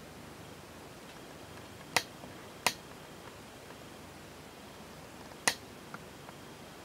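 Three sharp clicks, two close together about two seconds in and a third about five and a half seconds in, followed by a couple of fainter ticks, over a faint steady hiss.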